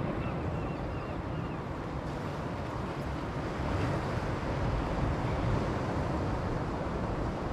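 Wind buffeting the microphone in a low, uneven rush, with the sea washing on the shore behind it.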